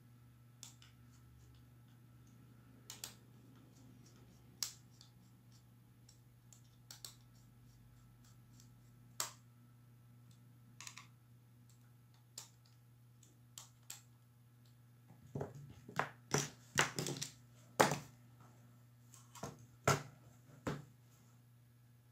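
Scattered small clicks and taps of a precision screwdriver and metal parts as screws are worked out of a laptop motherboard's heatsink and fan. About two-thirds of the way in comes a quicker run of louder knocks and clatter as the board and parts are handled.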